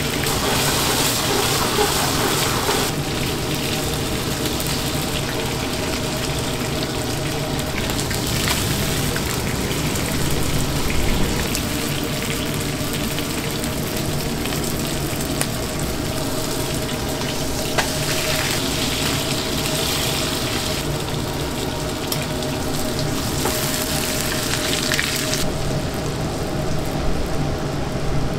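Restaurant kitchen noise: food sizzling on a hot pan and water running. The sound changes abruptly a few times along the way, about 3 seconds in, around 21 seconds and again near 25 seconds.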